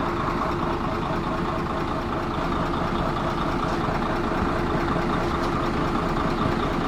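Mercedes-Benz truck diesel engine idling steadily after being started following its repair.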